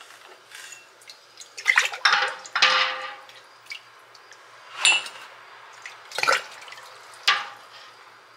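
Glass half-pint canning jars clinking and knocking together as they are handled, several separate clinks, some with a short high ring.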